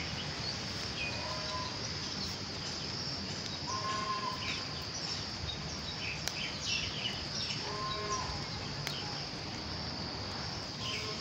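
Insects droning steadily at a high pitch, with birds chirping now and then, including a couple of short calls about four and eight seconds in.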